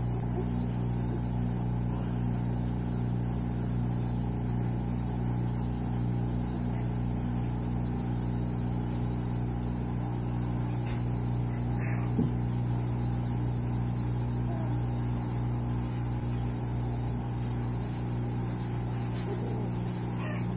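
Steady low machine hum that keeps an even pitch throughout, with one brief faint knock about twelve seconds in.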